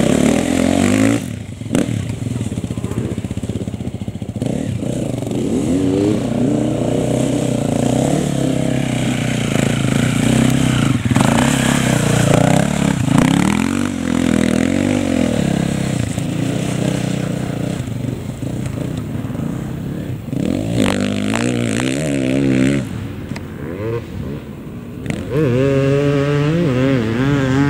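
Enduro dirt bike engine revving up and down under the rider's throttle, its pitch climbing and dropping repeatedly, with a few short knocks.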